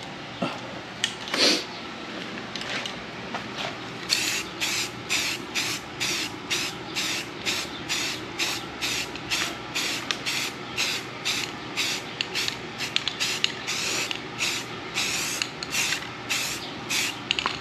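Brown camouflage spray paint hissing from the can in short bursts. There are a few scattered sprays at first, then quick repeated bursts about two a second.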